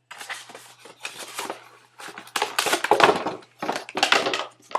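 Plastic and cardboard packaging from an electric toothbrush box being handled and rummaged through: irregular rattling, rustling and clacking, heaviest about halfway through and again near the end.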